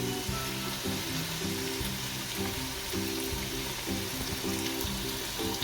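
Background music with a melody of held notes over the steady sizzle of browned onions and ginger-garlic paste frying in oil in a pot.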